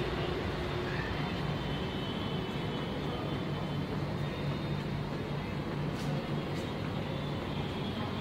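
Steady low rumble of background noise with a faint hum, and a couple of faint clicks about six seconds in.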